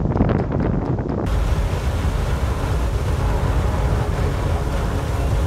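Low, gusty wind rumble on the microphone, then about a second in a cut to the steady rushing hiss of a geyser erupting, water and steam jetting.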